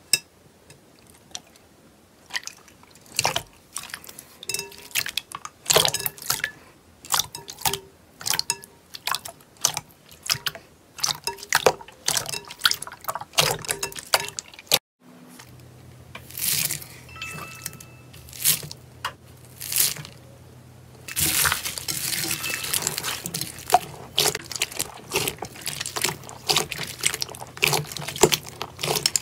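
Slime being squeezed and stretched by hand: a run of sticky clicks and pops. About halfway through a second clip starts, with a faint steady low hum under denser, crunchier crackling in its last part.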